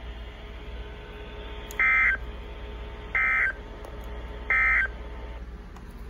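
NOAA Weather Radio played through a portable weather radio's speaker: three short, loud bursts of warbling data tones about 1.3 s apart, the SAME end-of-message code that closes the required weekly test, over a steady low hum and hiss.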